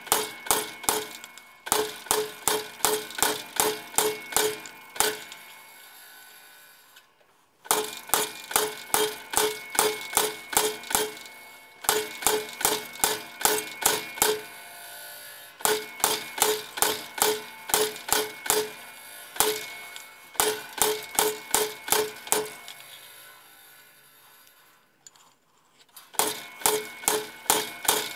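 Treadle hammer striking a handled cold chisel set on a square steel bar, cutting the cold layout lines for the splits. The sound is quick runs of ringing metal-on-metal blows, about three a second, broken by three short pauses.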